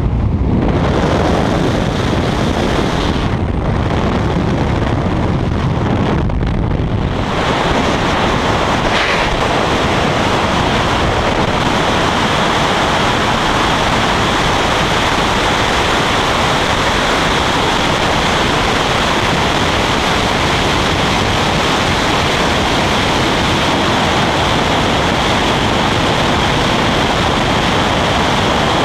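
Loud, steady rush of freefall wind over the camera's microphone during a skydive.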